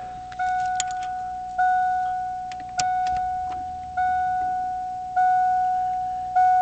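Car's dashboard warning chime sounding one mid-pitched ding about every 1.2 seconds, each struck sharply and fading, six in all. The chime is going with the ignition on and a door open. A few faint clicks fall among the dings.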